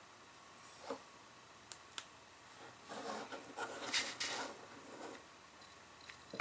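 Soft craft-table handling sounds: a few light clicks, then a couple of seconds of rustling and scraping as a clear acrylic stamp block is picked up and moved about over the cardstock, and a sharp tap at the end.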